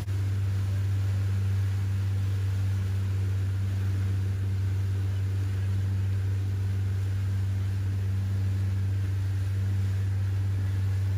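Boat engine running steadily: an even, low drone with no change in pitch.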